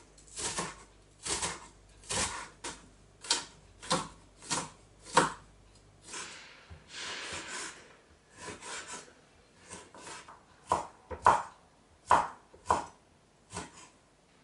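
Chef's knife chopping on a wooden cutting board, dicing onion, then bacon and ham: a string of sharp cuts, about one or two a second, with a longer, noisier stretch of cutting about six seconds in.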